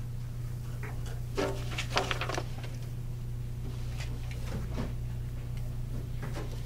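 Paper scenery and popsicle-stick paper puppets being handled: a cluster of short rustles and light knocks between about one and a half and two and a half seconds in, and a few more around four to five seconds, over a steady low hum.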